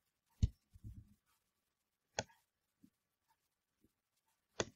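Computer mouse clicking: three sharp single clicks a couple of seconds apart, with a few fainter ticks between.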